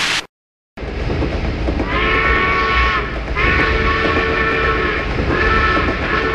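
Steam train's whistle blowing three long blasts, each a chord of several steady tones, over the low, steady rumble of the train.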